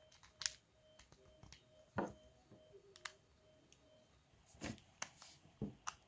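Plastic clicks and knocks from a Sony car stereo and its faceplate being handled and pressed together during reassembly. About seven sharp clicks are spread out, with short quiet gaps between them.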